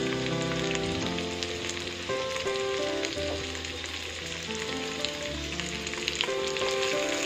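Sliced onion, tomato and green pepper strips frying in oil in a non-stick wok: a steady sizzle with fine crackles, under background music with sustained notes.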